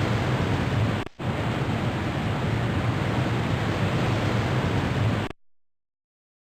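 Ocean surf as a steady rushing wash of waves, heaviest in the low end. It drops out for a moment about a second in, then cuts off abruptly to silence a little after five seconds.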